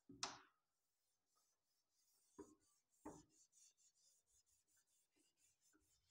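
Faint rubbing of a board duster wiping a whiteboard clean in many short strokes, with a brief swish near the start and two soft knocks against the board.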